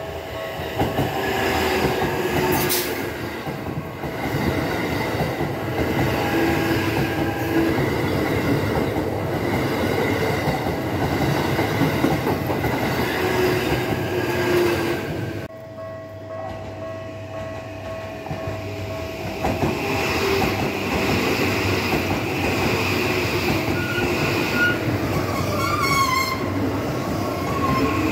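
Commuter trains passing over a level crossing, with the rumble and clatter of wheels on the rails. The sound breaks off suddenly about halfway and train noise resumes; a high wheel squeal wavers near the end.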